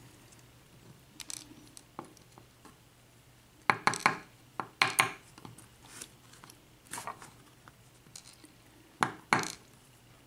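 Small metal lock parts (pin-tumbler pins and the padlock core) clicking and clinking against a hard surface as they are handled, in scattered light taps, some in quick pairs.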